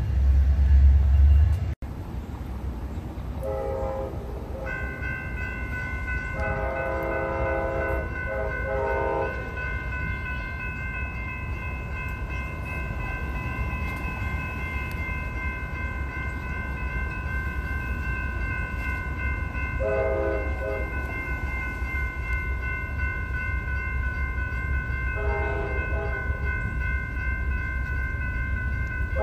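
Railroad grade-crossing warning bell ringing steadily while a train's horn sounds several blasts of a chord, some long and some short, over a low rumble. A louder low rumble fills the first couple of seconds and cuts off abruptly.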